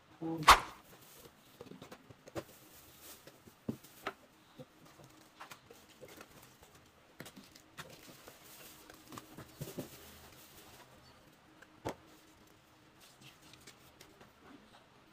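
Handling of a plastic model kit's packaging: a sharp knock about half a second in is the loudest sound, followed by scattered taps and clicks and soft rustling of clear plastic parts bags and the paper instruction sheet.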